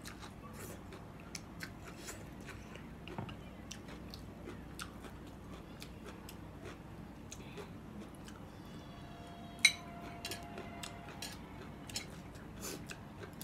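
Close-miked eating sounds: a person chewing a mouthful of noodles, with many small wet mouth clicks and smacks, and one sharp, louder click about ten seconds in.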